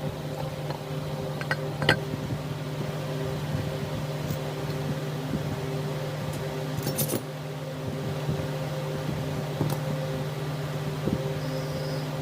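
A steady machine hum with a few light metallic clinks, about two seconds, seven seconds and ten seconds in.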